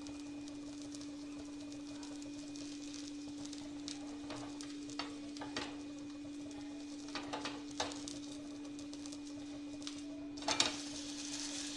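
Wooden spatula scraping and knocking against a nonstick tawa as a semolina pancake is worked loose and flipped, with a few short scrapes in the middle and the loudest knock about ten and a half seconds in as it lands. A light frying hiss rises after it lands, over a steady low hum.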